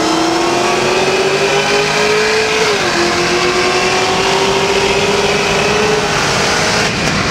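Cars accelerating hard side by side in a highway roll race. The engine note climbs steadily, drops sharply with an upshift about three seconds in, then climbs again before levelling off near the end.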